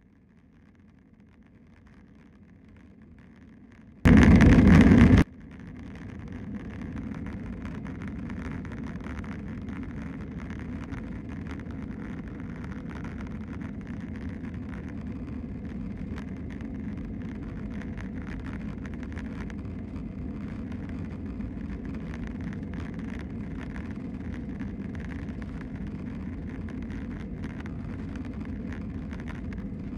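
Airliner cabin noise from an Airbus A320-216's engines spooling up for the takeoff roll: it rises over the first several seconds, then holds at a steady rumble with a low hum. A very loud burst cuts in about four seconds in and lasts about a second.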